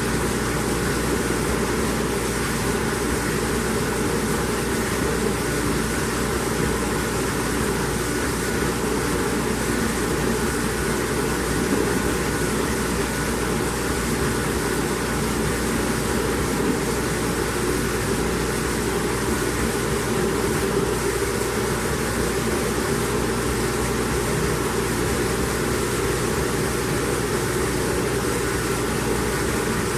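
Hobart LXiH commercial dishwasher running: a steady, even machine whir and rush that does not change.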